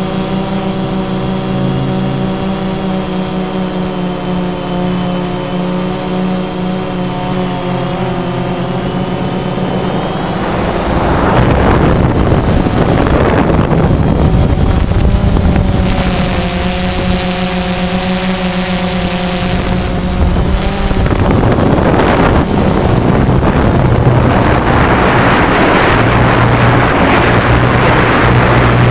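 Quadcopter drone's motors and propellers buzzing steadily, with a slightly wavering pitch. From about ten seconds in, loud wind noise rushing over the microphone takes over, and the motor buzz drops back under it for the last third.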